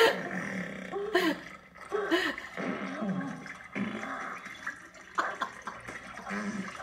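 Film sound effects of a man having explosive diarrhea on a toilet: wet splattering and gurgling noises in short bursts, mixed with his strained grunts, heard from a TV's speaker.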